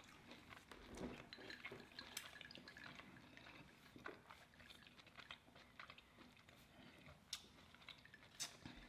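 Faint chewing and scattered small wet mouth clicks from eating a burrito.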